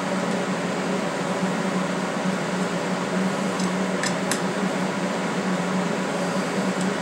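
Steady fan hum with a constant low drone, and two light metallic clicks about four seconds in as a hex key works the alignment screws in a steel fixture plate.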